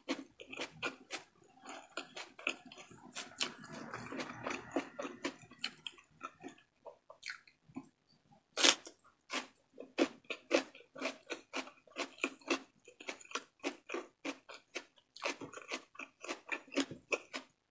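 Close-miked chewing of frog meat: wet mouth smacks and clicks at about three a second, with one louder snap about nine seconds in.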